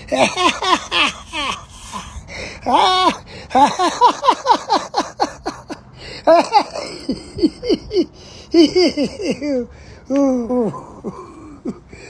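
A man laughing hard: long runs of quick, short 'ha' syllables, each dropping in pitch, broken by brief pauses for breath.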